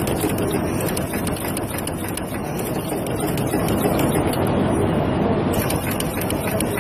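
Automatic pearl-setting machine running, its punching head clicking over and over as it fixes small pearls onto lace, over a steady background din.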